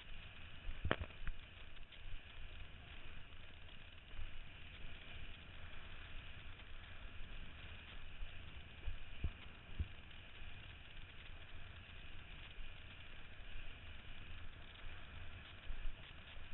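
Wind buffeting the microphone and water hissing and splashing under a kiteboard as it rides across choppy water, with one sharp knock about a second in.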